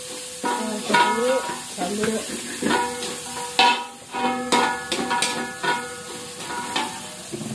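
Metal spatula scraping and striking a metal wok while stir-frying, with a sharp clank every half second or so and the wok ringing briefly after each strike, over a light sizzle of the frying seasoning.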